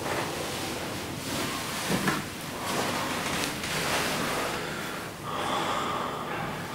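Two people breathing heavily and gasping, with clothing rustling as they grapple on the floor.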